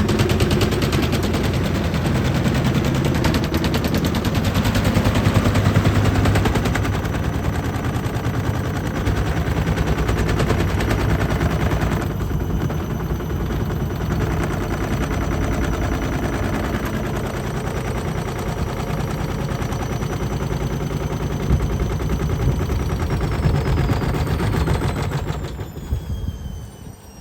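Beko washing machine running with its counterweights removed, its drum knocking and rattling in a fast, loud, continuous clatter during the spin. Near the end a high motor whine falls in pitch and the clatter dies away as the drum slows.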